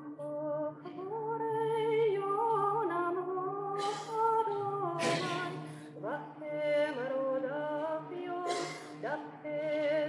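A cappella choir singing a Syrian-chant Lenten hymn: a sung melody moving over a steady, held low drone note.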